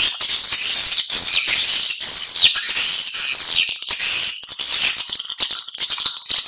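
Swiftlets chirping and twittering in a dense, high-pitched chorus, with several short falling calls. It is a swiftlet lure call of the kind played on loop to draw swiftlets into nesting houses.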